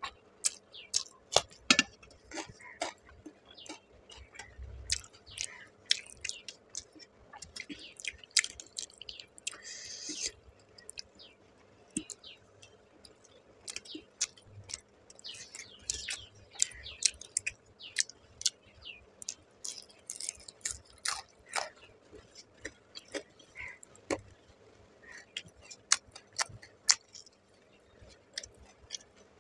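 A person eating rice and fish by hand, with close-up chewing and irregular wet mouth clicks and smacks.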